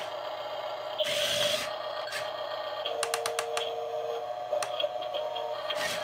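Double E F-96 1/14-scale RC skid steer loader working in a dirt box: a steady motor whine, with a short rasping noise about a second in and a quick run of clicks around three seconds in as it backs off the pile and lifts its bucket.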